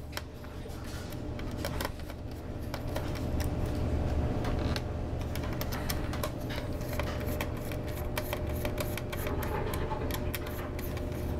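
Small screwdriver working the screws of a laptop's heatsink: a run of light metallic clicks and scrapes, busier in the second half, over a steady low hum.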